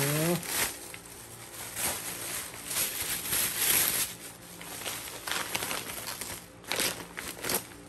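Plastic packaging crinkling and rustling in irregular bursts as a parcel in a plastic mailer and bubble wrap is unwrapped by hand, then a clear plastic parts bag is handled.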